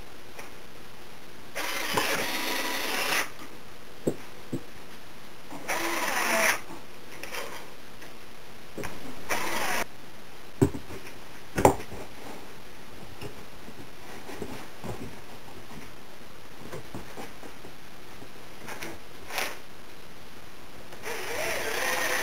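Cordless drill driving screws into wooden stretcher bars in short runs, about two, six and nine seconds in and again near the end, the last run rising in pitch. Two sharp knocks come a little past the middle.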